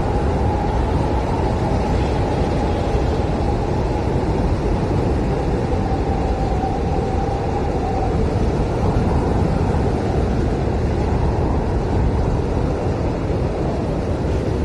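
Strong blizzard wind blowing steadily, a deep rushing with a faint wavering howl above it.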